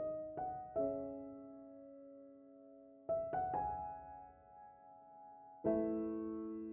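Slow, soft background piano music: sparse chords and single notes that ring out and fade, about three groups of strikes with long pauses between them.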